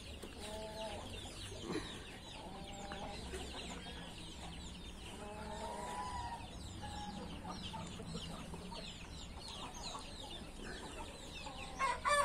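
Chickens clucking softly, with a few drawn-out hen calls, over a constant high cheeping.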